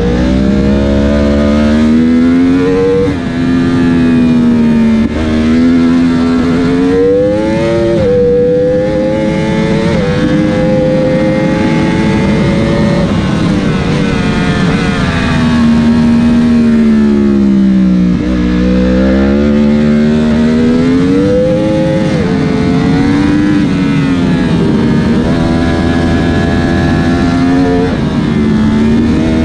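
Superbike engine, heard onboard, under hard acceleration through the gears: its pitch climbs and drops sharply at quick upshifts, and the power cuts briefly at about 3 and 5 seconds in. It then falls for several seconds as the bike brakes and downshifts, and rises again as it accelerates out of the corner, with wind rush throughout.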